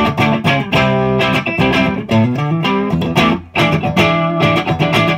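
Electric guitar, a Dean Dime Razorback on its neck-position Ironstone humbucker, played clean through a 100-watt Marshall JCM 900: a fast run of picked notes and chords with a solid, tight low end, with a short break about three and a half seconds in.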